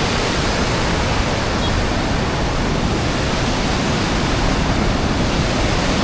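Loud, steady rush of a waterfall and river rapids close by, an even roar of falling and churning water with no break.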